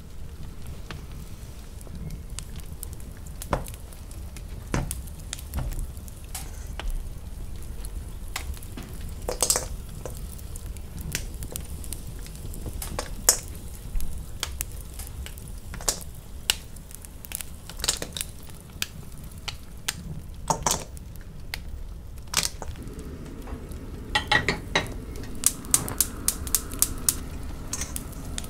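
Kitchen handling sounds: scattered clinks and knocks of ingredients and utensils against a stainless steel mixing bowl and saucepan, over a low steady hum, with a quicker run of small clicks near the end.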